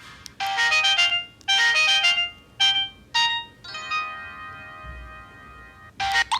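Samsung SCH-a815 phone playing a polyphonic ringtone: four short chords roughly a second apart, then a long held chord. Another ringtone begins right at the end.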